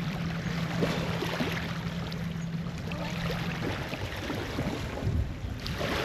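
Wind buffeting the microphone over a rushing outdoor noise, with a low steady hum that stops about three and a half seconds in.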